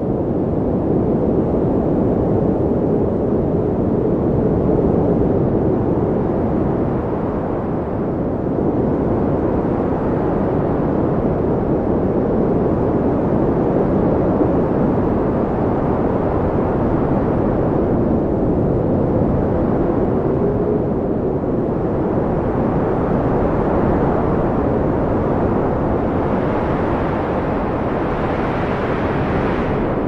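Strong windstorm: a steady low rushing of wind that swells and eases slightly, with a faint wavering howl.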